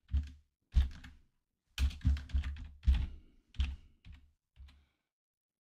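Typing on a computer keyboard: a password is keyed in as irregular keystrokes, some single and some in quick runs, with short pauses between.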